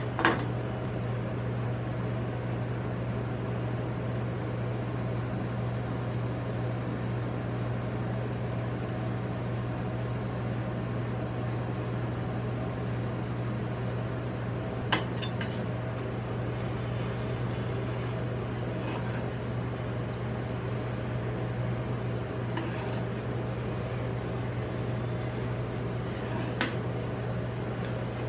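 Rolled ice cream cold-plate machine humming steadily from its compressor, with occasional sharp clicks of metal spatulas tapping on the steel plate.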